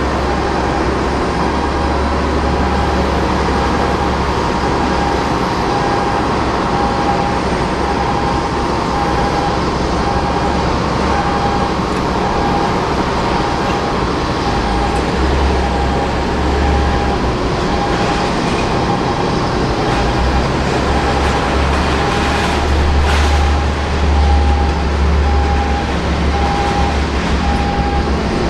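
Steady rumble of apron machinery during the pushback of a Boeing 787-8, growing louder for a few seconds midway and again near the end, with a single-pitch electronic beep repeating at an even pace throughout.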